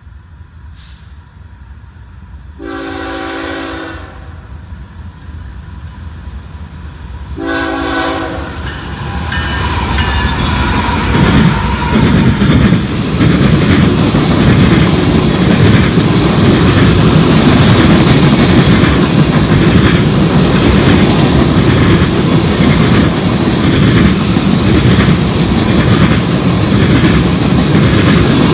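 CSX diesel freight train approaching and sounding its horn in two blasts, a longer one then a shorter one. The locomotives then rush past at speed, and a long string of tank cars follows with a loud steady rumble and a rhythmic clickety-clack of wheels on the rails.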